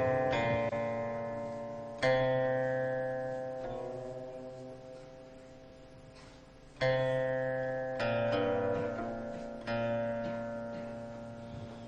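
Slow plucked-string instrumental music: a few notes or chords struck a few seconds apart, each left to ring and fade before the next.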